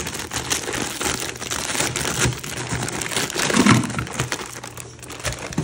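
Plastic freezer bag crinkling as frozen shrimp are shaken out of it into a plastic tub, with many small crackles and clicks. The loudest rustle comes about two thirds of the way through.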